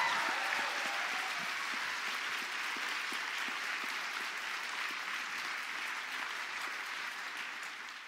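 Audience applauding, the clapping slowly tapering off toward the end.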